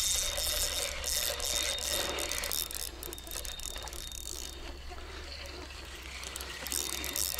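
Fishing reel ratcheting and whirring while a hard-pulling fish is played, loud for the first couple of seconds and again near the end, quieter in between.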